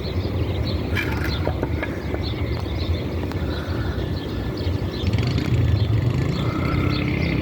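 Freight train rolling past: a steady low rumble of wheels on rail with scattered clicks, and a few brief high squeals, louder near the end.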